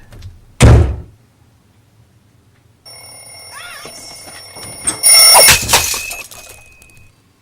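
A loud thunk, then an electric-sounding bell ringing for about four seconds, loudest near the end before it stops.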